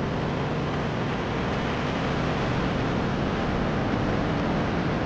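Steady rush of wind on the microphone together with engine and road noise from a moving two-wheeler.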